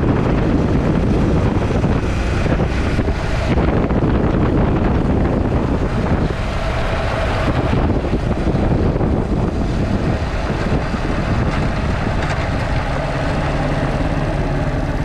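Motorcycle riding at road speed: the engine's steady drone mixed with wind rushing over the microphone.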